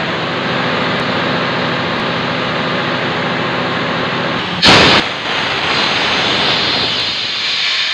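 Reconditioned Tanabe HC-277A main air compressor running under test with a steady mechanical drone, then a little past halfway a sudden loud blast as compressed air is let off through a valve, followed by a steady hiss of escaping air.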